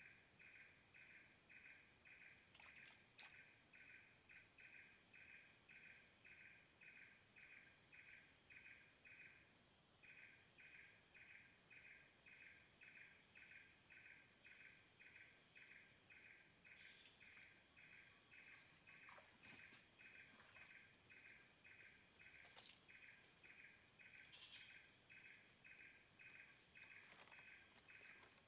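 Faint chorus of forest insects: a steady high-pitched drone with a rhythmic chirping about two and a half times a second, which pauses briefly about ten seconds in, and a few faint ticks.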